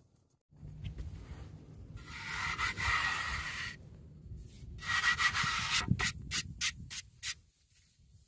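Rubbing and scraping noise close to the microphone, over a low rumble. It comes in two long stretches and then a quick run of short strokes.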